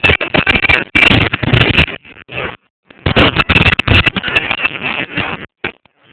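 Fireworks bursting in quick succession: very loud runs of bangs and crackle, each lasting about a second, broken by short gaps.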